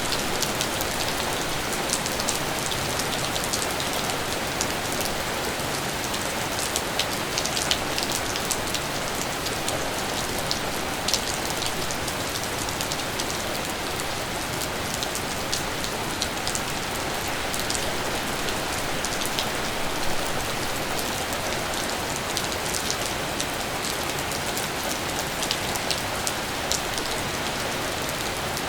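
Steady rain falling, with many sharp ticks of single drops striking close by, scattered unevenly over the constant hiss.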